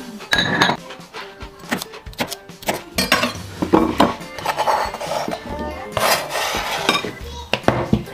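Chef's knife chopping smashed cucumber on a plastic cutting board: a run of irregular knocks against the board, under faint background music.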